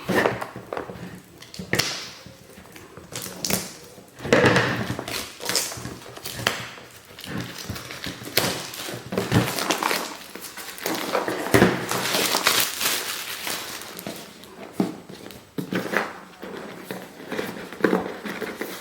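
A cardboard jigsaw puzzle box and its wrapping being handled: irregular rustling and crinkling with soft knocks.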